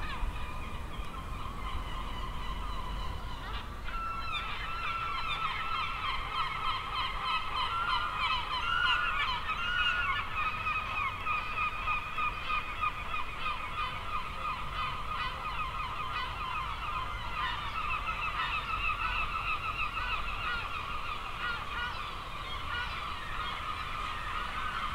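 A large flock of birds calling continuously, many short pitched calls overlapping into a dense clamour that thickens a few seconds in.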